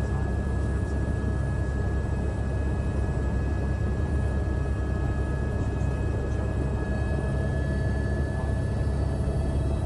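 Helicopter engine and rotor noise, a steady low drone with a faint high whine held on top.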